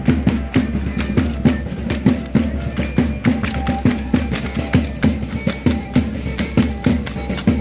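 Matachines dance music: sharp percussive beats at about four a second, with a violin melody over them.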